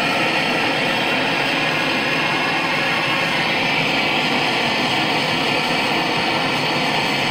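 Steady hiss and rush of a handheld gas torch flame burning on a mold, running evenly throughout as molten silver is poured from a crucible.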